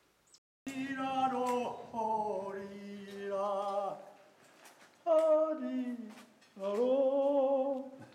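A voice singing unaccompanied: three phrases of long held notes with a slight waver, the first starting a little under a second in, with a short break after it.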